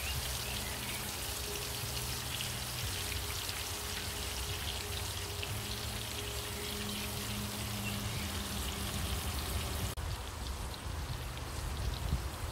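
Pork steaks sizzling in a hot cast-iron skillet: a steady crackling hiss full of small pops. About ten seconds in the hiss turns quieter.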